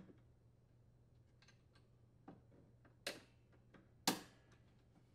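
A few faint metallic clicks from snap-ring pliers and a large steel snap ring being fitted over a lawn mower's rear axle, with two sharper clicks about three and four seconds in.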